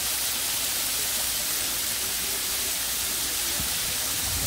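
Chopped bacon sizzling in a frying pan, a steady hiss of spitting fat, with a soft low bump or two near the end.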